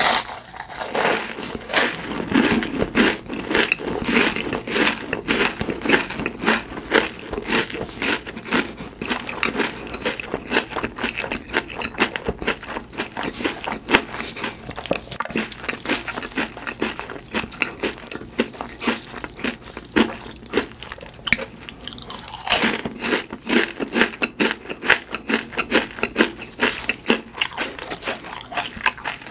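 Close-miked chewing of crispy fried food: a dense run of crisp crunches and bites, with a louder bite about 22 seconds in.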